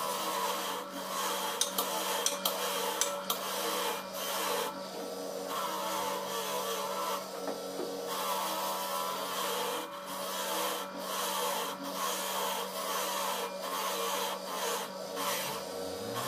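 Bench grinder wheel running with a steady hum while the metal housing of an alternator is pressed against it, giving an uneven scraping and rubbing that swells and eases as the part is worked.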